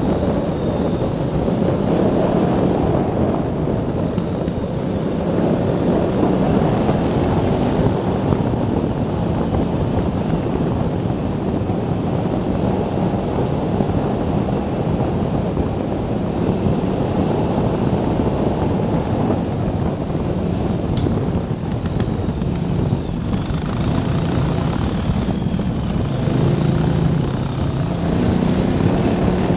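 Heavy wind noise buffeting the microphone of a moving motorcycle, with its engine running underneath. Near the end the engine note steps up and down.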